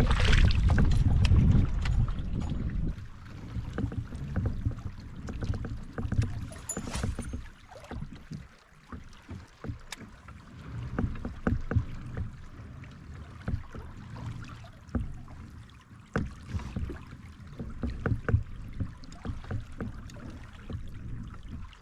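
Wind rumbling on the microphone, strongest in the first two or three seconds, then fading to a lower rumble with scattered light clicks and knocks.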